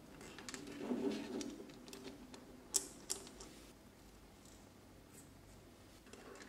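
Small metal model parts being handled and fitted together: light clicks, taps and rubbing as a steel shaft is worked through an aluminium pulley and parts are threaded onto its end, with two sharp clicks about three seconds in.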